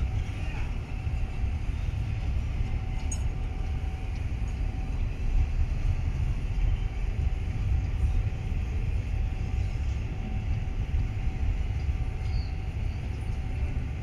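Intermodal freight train of double-stacked container well cars rolling past, a steady low rumble of wheels on rail with a faint steady hum above it.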